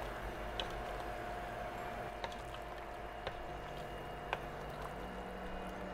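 Pot of seafood-boil water at a full rolling boil, bubbling steadily with a few small sharp pops.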